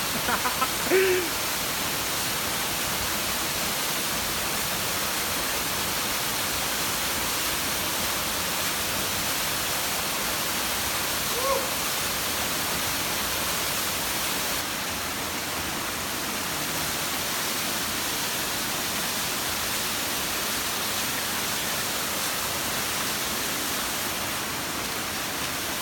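Steady rushing noise of a waterfall pouring into its pool. A short vocal sound breaks through about a second in, and another near the middle.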